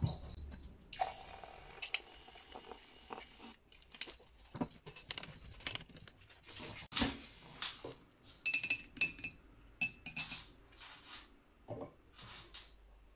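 A handheld milk frother whisking milk in a ceramic mug, with irregular clinks and knocks of the frother and mug being handled.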